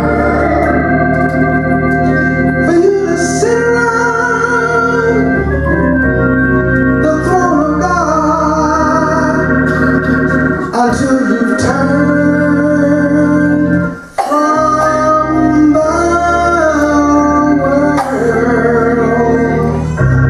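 Gospel song with electric organ accompaniment. Sustained organ chords sit under a man's singing voice that wavers in pitch, with a brief break about two-thirds of the way through.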